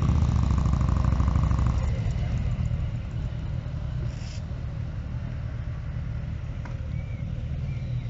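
Motorcycle engine running, louder for about the first two seconds, then settling to a lower, steady rumble.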